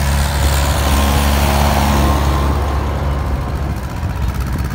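Old farm tractor's engine running steadily as the tractor passes close by, then dropping in level after about three seconds as it moves away.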